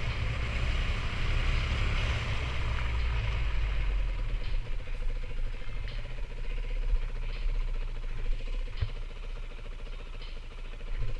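Yamaha WR250 dirt bike's single-cylinder four-stroke engine running on the move over a rough dirt track, with wind rumbling on the bike-mounted microphone and a few knocks from bumps. It gets quieter in the second half as the bike eases off.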